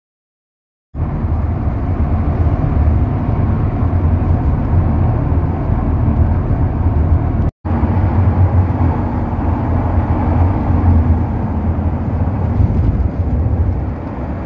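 A vehicle on the move: a loud, steady low rumble of road and wind noise that starts about a second in, with a brief dropout to silence midway.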